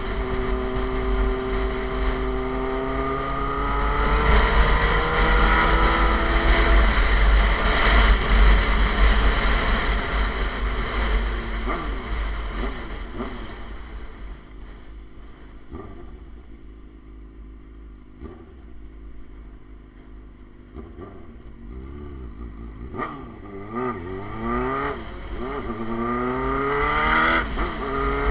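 Suzuki GSX-R sport bike with an SC Project aftermarket exhaust, heard on board while riding. The engine pulls up through the gears with a stepped rising pitch and heavy wind rush in the first several seconds, then the throttle is closed and it drops to a quieter run. Near the end come several short revs up and down, then it accelerates again with a rising pitch.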